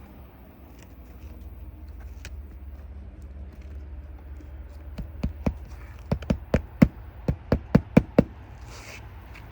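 Hammer driving roofing nails into a replacement asphalt shingle: a quick run of about a dozen sharp blows starting about halfway through.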